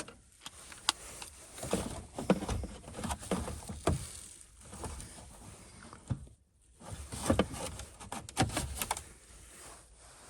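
Hands working on a car's dashboard radio installation: clicks, knocks and rustling of handled parts in two busy stretches, with a short quiet gap between them.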